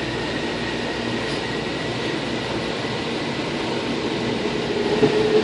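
AirTrain JFK car running along its elevated guideway, heard from inside the car: a steady rolling rumble with a faint high whine. Near the end a lower hum swells louder.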